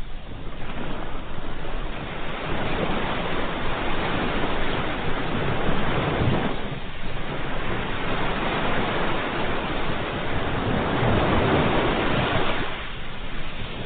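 Ocean surf: waves breaking and washing up, a continuous rush of water that swells and eases in two long surges, with lulls between them.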